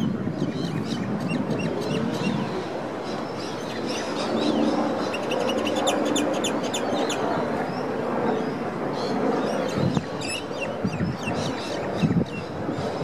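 City riverside ambience: a steady hum of distant traffic, with small birds chirping in quick, repeated bursts, busiest in the middle and again near the end. Two brief low thuds come near the end.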